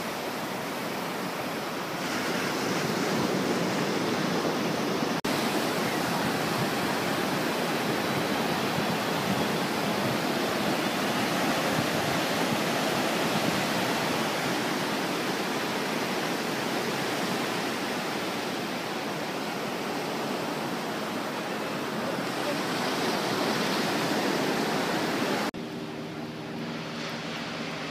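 Ocean surf breaking and washing up a sand beach: a steady rushing noise. Near the end it cuts to a quieter steady mechanical hum with several low tones.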